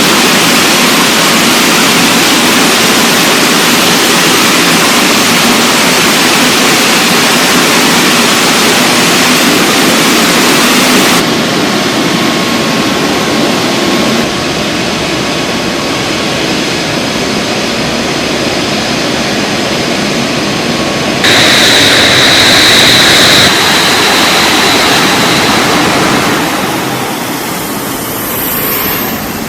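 JAS 39 Gripen fighter jet engines running loud and steady, heard in several edited clips that cut abruptly about a third and two-thirds of the way through. A high whine sounds over the jet noise for a couple of seconds after the second cut, and the noise eases off near the end.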